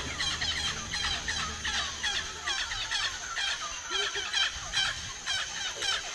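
Rapid, high chirping calls, each note sliding down in pitch, repeated several times a second with more than one caller overlapping, over a steady high whine.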